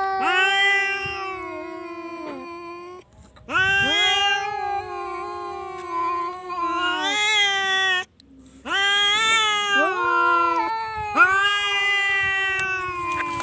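Domestic cat yowling in long, drawn-out calls, three in a row with short breaks between them.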